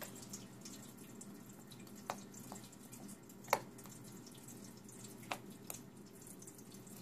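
A few light, isolated clicks of tiny metal screws and hand tools being handled at a laptop's display hinge, over a faint steady room hiss; the sharpest click comes about three and a half seconds in.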